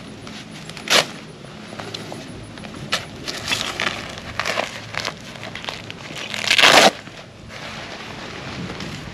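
Fabric Bone-Dri gun drying case being unstrapped and unrolled: rustling and scattered clicks of fabric and strap, with a sharp click about a second in and a louder half-second burst of noise near seven seconds in.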